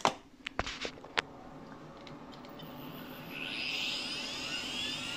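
A few sharp clicks, then, about three seconds in, SCSI hard drives spinning up with a rising whine that settles into a steady pitch as the 486 EISA machine starts up.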